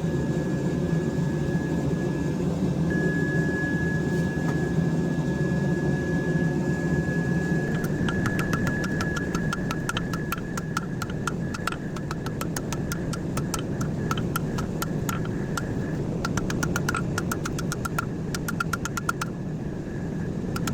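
Rapid hammer blows on a steel sushi-knife blank over the anvil, about four or five strikes a second with a bright ring, as the blade is thinned and drawn out; they start about eight seconds in and stop shortly before the end. A steady low machine roar with a high whine runs underneath.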